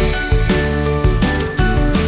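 Intro music with a steady beat.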